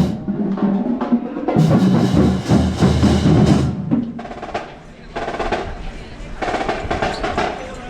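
School marching band drumline playing, snare and bass drums with rolls, loudest in the first four seconds and then quieter.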